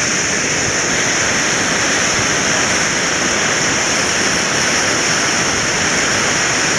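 Floodwater rushing steadily in a swollen river after a night of heavy rain: a loud, even roar of water with no breaks.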